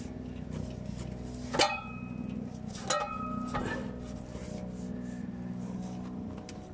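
Metal clanks and clicks of an exhaust tailpipe and hanger being worked into place: two sharp clanks, about a second and a half apart, each ringing briefly, with lighter knocks around them over a steady low hum.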